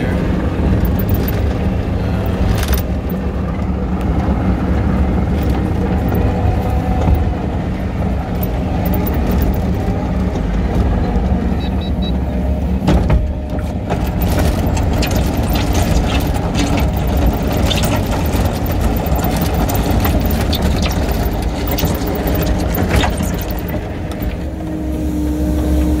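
Kubota SVL95 compact track loader's diesel engine running steadily under work, with scattered knocks and clanks from the machine.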